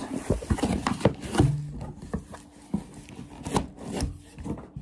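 Cardboard shipping box being opened by hand: the lid and flaps scraping and rubbing, with irregular knocks and taps.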